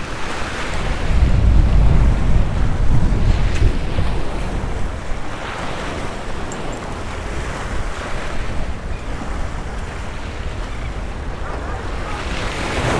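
Small waves splashing and washing against granite jetty boulders, with wind buffeting the microphone as a low rumble that is strongest in the first few seconds.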